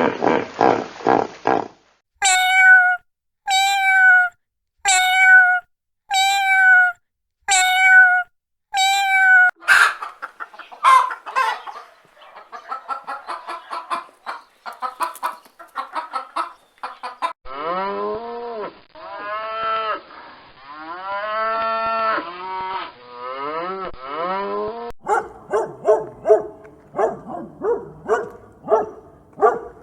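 Recordings of different farm animals' calls, edited one after another. First come six evenly spaced loud calls, then a stretch of rapid, choppy clucking-like calls, then a run of long rising-and-falling calls. Short barks repeat near the end.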